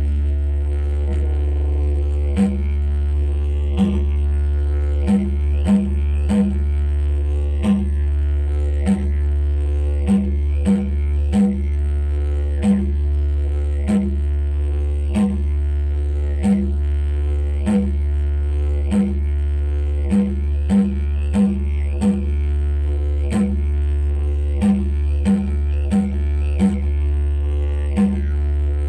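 Didgeridoo playing an unbroken low drone kept going by circular breathing, punctuated by short sharp rhythmic accents about once or twice a second.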